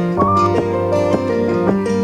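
Background music: plucked acoustic guitar playing a light melody with a steady rhythm.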